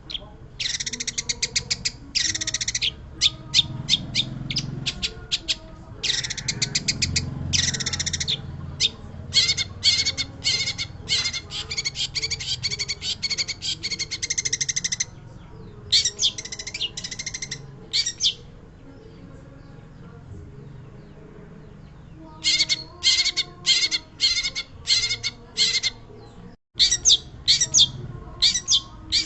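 Long-tailed shrike (pentet) singing vigorously: fast runs of short, high chattering notes, broken by a pause of a few seconds past the middle.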